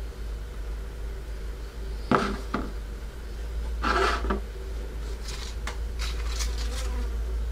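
Small plastic rhino figure knocking and scraping against a wooden tabletop as it is handled and set down, with a sharp click about two seconds in, a longer scrape about four seconds in, then a few light ticks, over a steady low hum.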